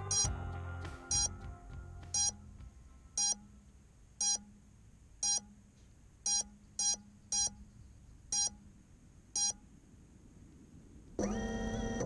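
A crashed FPV quadcopter beeping to be found: short electronic beeps about once a second. Background music fades out in the first two seconds, and a longer, steadier tone sounds near the end.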